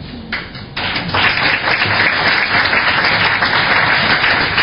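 Audience applauding: a couple of scattered claps, then full applause swelling about a second in and holding steady.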